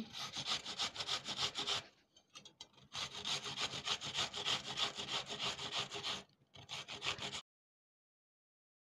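Peeled onion being grated on a flat stainless-steel hand grater: quick scraping strokes, about four a second, in runs broken by short pauses, stopping abruptly shortly before the end.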